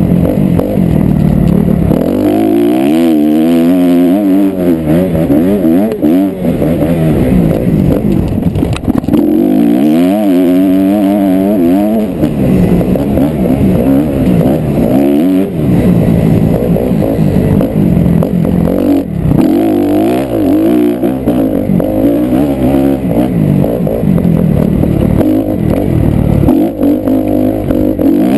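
Honda 250 motocross bike engine revving hard and easing off again and again as it is ridden over sandy terrain, its pitch climbing and dropping every couple of seconds.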